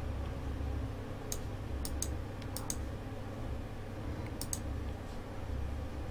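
Computer mouse clicking: a handful of sharp clicks, several in quick pairs, over a low steady hum.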